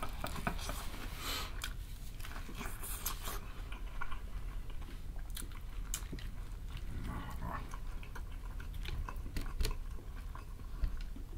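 Close-up biting and chewing of crispy breaded fried chicken: scattered crunches and wet mouth clicks.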